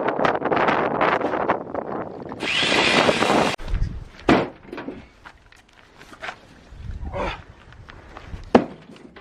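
Oak firewood logs clattering and knocking against each other as they are handled. A scraping stretch cuts off abruptly after about three and a half seconds, followed by two single sharp wooden knocks.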